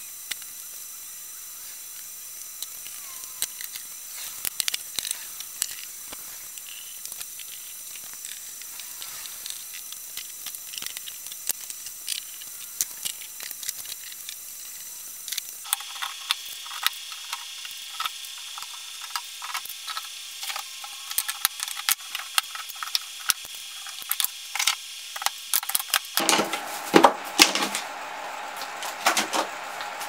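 Workshop handling noise over a steady hiss. Scattered light clicks and taps come first, then after a change in the background the clicks and knocks of quick-grip and bar clamps being set and tightened on a glued wooden frame grow denser, loudest a few seconds from the end.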